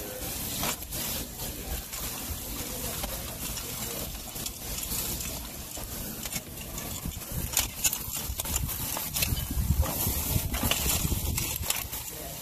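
Metal tongs clicking and scraping against lobster shells and the grill grate as whole lobsters are turned on a gas grill, over a steady hiss. A low rumble joins in about nine seconds in.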